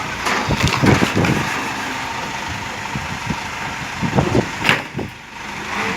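Hydra pick-and-carry crane's diesel engine running steadily while handling a heavy tree trunk, with several sharp knocks, the loudest near the end.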